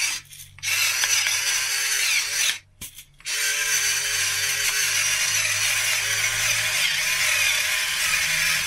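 Electric pepper mill grinding black peppercorns, its small motor whirring steadily. It stops briefly twice, once just after the start and once about three seconds in, then runs on.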